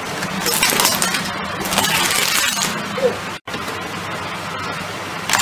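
Car tyre rolling over a plastic toy remote-control helicopter, its body and rotor parts cracking and snapping in two crackling spells. The sound drops out for an instant about three and a half seconds in.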